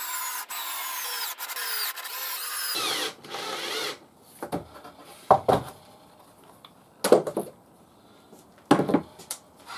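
Cordless drill boring into a wooden box, its motor whine dropping in pitch several times as the bit bites, stopping about four seconds in. Then several loud knocks and clunks as metal bar clamps are released and lifted off the box.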